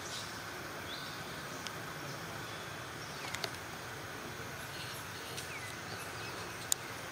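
Outdoor ambience: a steady hiss with a few short, high, downward-sliding chirps and a sharp click near the end.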